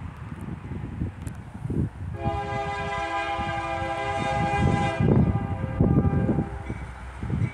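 Union Pacific AC44CW diesel locomotive's air horn sounding one long, steady chord blast, starting about two seconds in and lasting about five seconds, as the freight train approaches. Low gusty wind buffeting of the microphone runs underneath.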